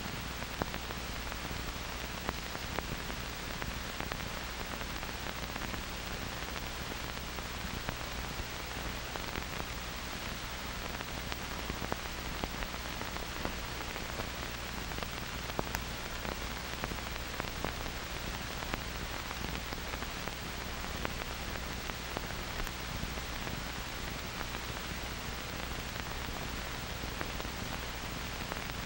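Steady hiss with a low hum and scattered faint clicks and crackles: the background noise of an old optical film soundtrack.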